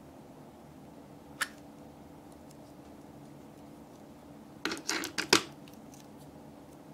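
Small plastic clicks and taps from handling a Barrel O' Slime toy container and its lid: one click about a second and a half in, then a quick run of several near the five-second mark. A low steady hum runs underneath.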